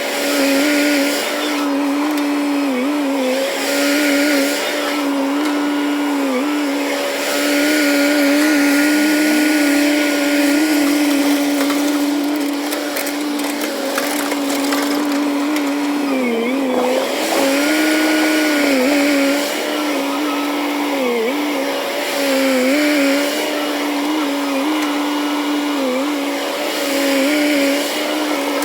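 JCB JS205 excavator running under work, a steady machine hum whose pitch dips briefly every couple of seconds as the engine takes load.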